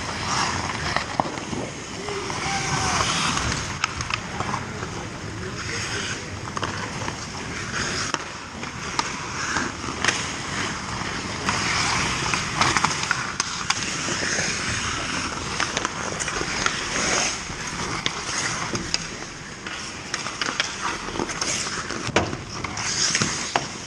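Ice hockey skates carving and scraping on the ice, with frequent short sharp clacks of sticks and pucks, and players' indistinct shouts echoing in the rink.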